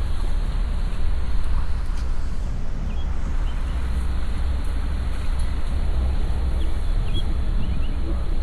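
Steady low rumble of a car driving slowly, with a few faint short high chirps scattered over it.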